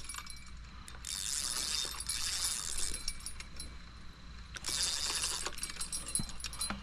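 Fishing reel's clicker ratcheting in two bursts of rapid high ticking, each a second or two long, as a fish pulls line off the bent rod standing in its holder.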